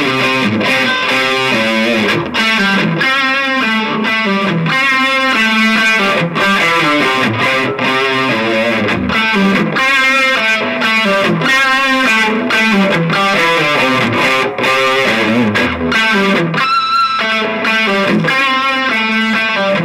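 Electric guitar played through a Shredhead distortion pedal into a small, cheap amplifier: a continuous stream of heavily distorted notes and phrases, the pitch changing every fraction of a second.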